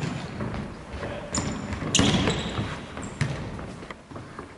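Faustball being struck and bouncing on a sports-hall floor: several sharp thuds that echo through the hall, the loudest about two seconds in. A few short high squeaks of shoes on the court come in between.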